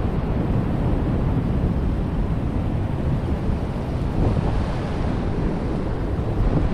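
Sea swell surging and breaking against a sandstone rock ledge, a steady rush of churning whitewater, with wind buffeting the microphone.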